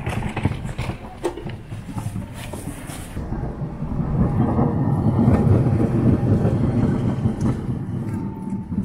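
Sapporo city streetcar passing close by on its rails: a low rumble that builds to its loudest about halfway through, then fades.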